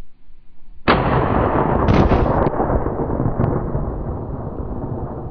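A hunting rifle shot about a second in, its boom rolling away slowly over several seconds.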